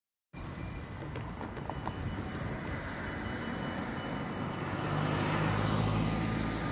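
Cars driving past on the road, with tyre and engine noise that swells as a car passes close about five seconds in. A sharp knock comes right as the sound begins.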